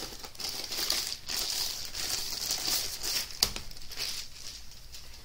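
Clear plastic wrapping crinkling as it is pulled off a rolled diamond painting canvas, with a sharp click about three and a half seconds in.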